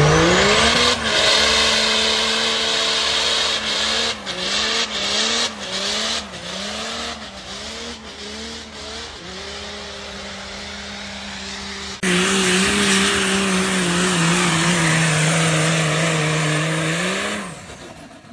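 Diesel pickup engine revving hard as the truck launches, its pitch climbing and then rising and falling in quick waves. About twelve seconds in, a second diesel pickup runs at high revs under heavy load pulling a sled, its pitch slowly sagging, then rising briefly before it dies away near the end.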